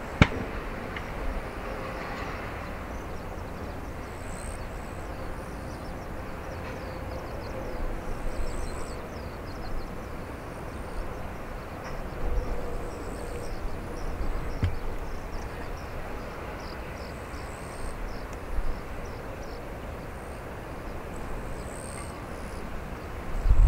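Steady rumble of a JAL Airbus A350-900's Rolls-Royce Trent XWB engines at taxi idle, with a faint steady whine, as the airliner taxis. A sharp click right at the start.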